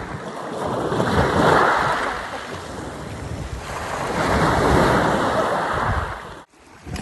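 Sea surf washing onto a sandy beach, swelling twice as waves come in, with some wind on the microphone. The sound cuts off abruptly near the end.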